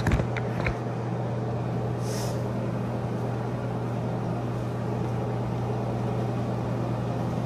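A steady low hum with a hiss under it, even in level throughout. A few sharp clicks come in the first second, and a short hiss about two seconds in.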